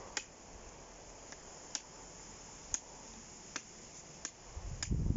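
A 6-inch dagger blade chopping into a very hard branch the owner thinks may be hornbeam: about seven sharp, short knocks at uneven intervals, roughly one a second. A louder low noise starts near the end.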